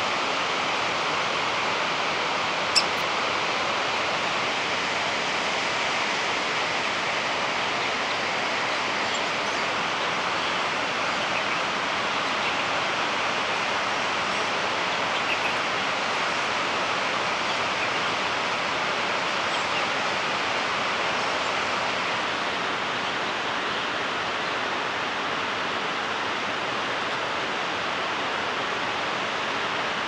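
Steady rushing of fast-flowing water, even and unbroken throughout, with one sharp click about three seconds in.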